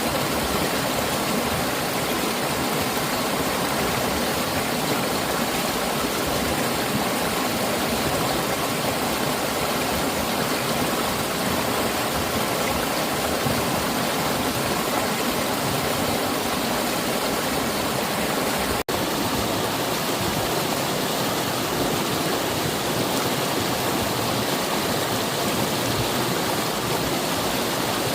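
Mountain valley stream rushing and splashing steadily over rocks, a constant full, even water noise. It breaks for a split second about two-thirds of the way through.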